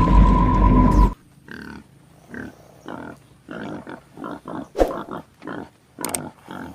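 Music cuts off about a second in, then a person snoring in a quick run of short, uneven snores.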